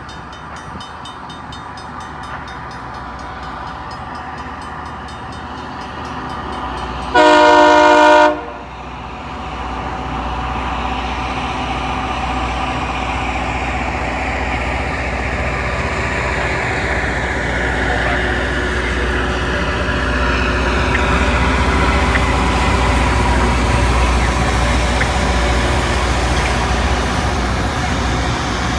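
Loram rail grinder approaching, the low rumble of its engines building steadily. It sounds one loud horn blast about seven seconds in, lasting a little over a second.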